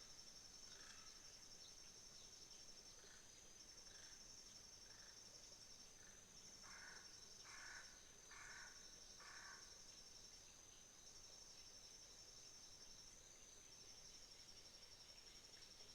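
Faint, steady high-pitched trilling of autumn crickets. Around the middle a bird gives four short calls in a row, a little under a second apart, with a few fainter calls before them.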